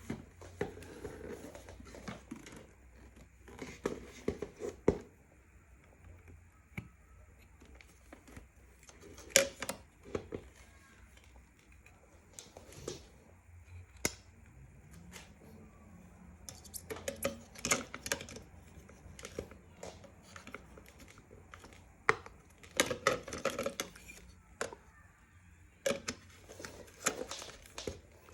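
Plastic parts of an Eta Fenix vacuum cleaner being handled and fitted together: scattered clicks and knocks, some in quick clusters, with rustling between them.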